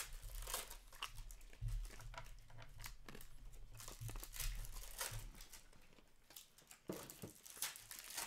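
Foil trading card pack wrappers crinkling and tearing, with cards rustling as they are handled, in irregular short bursts.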